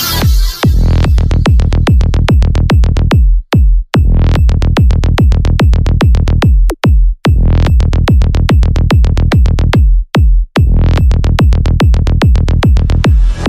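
Psy-trance track: a steady four-on-the-floor kick drum, about two and a half beats a second, with a rolling bassline between the kicks and hi-hats on top. It drops out three times for a moment.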